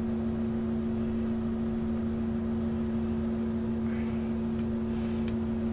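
Steady electrical hum with two constant tones over an even hiss, a background drone that does not change.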